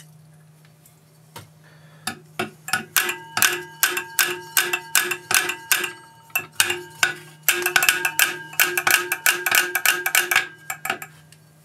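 Rapid, uneven metallic clicking with a short ring on each click, from the seized electric motor of a DEWALT air compressor as its rotor is worked back and forth by hand after a spray of WD-40. The clicking starts about two seconds in and stops shortly before the end, over a steady low hum.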